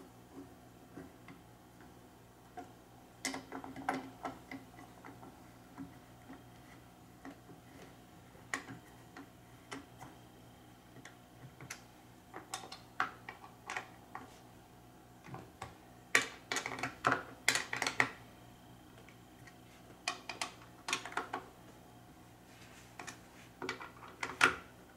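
Irregular metallic clicks and taps of bolts and a hand tool as the foot pedals are fastened onto a compact elliptical trainer. Flurries of quick clicks come about three to four seconds in and again around sixteen to eighteen seconds, with a sharp click near the end.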